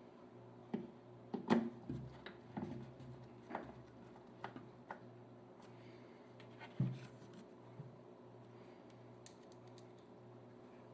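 Irregular light clicks and knocks of hands handling and refitting parts on a Technics SL-1600MK2 turntable during reassembly, the loudest knocks about a second and a half in and near seven seconds, over a faint steady low hum.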